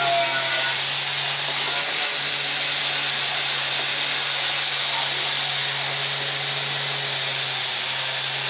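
A machine used in cleaning engine parts runs steadily: a constant hiss with a high-pitched whine and a low hum underneath.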